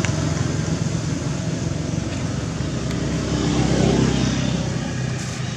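A motor engine running steadily close by, growing louder to about four seconds in and then easing off, as a passing vehicle does.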